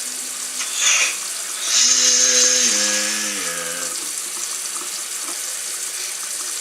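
Kitchen tap running steadily into a sink during dishwashing. Water splashes louder briefly about a second in, then gushes harder for about a second near the middle.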